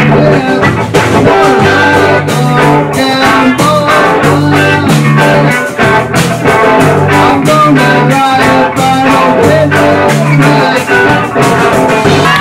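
A rock band playing a song: electric guitars over a drum kit keeping a steady beat.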